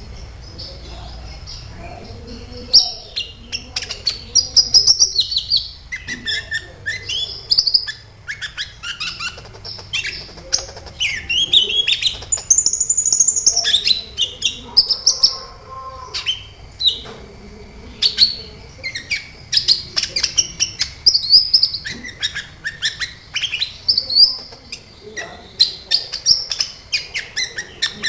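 Sunbird (kolibri) singing a fast, busy run of high, sharp chirps and short sweeping notes. A quieter opening gives way to the loud song about three seconds in, with brief pauses between phrases.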